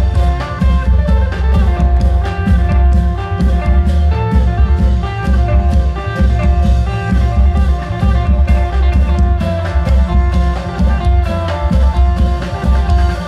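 Thai klong yao long-drum ensemble playing through an amplified sound system: a dense, steady drum beat under an amplified melody line.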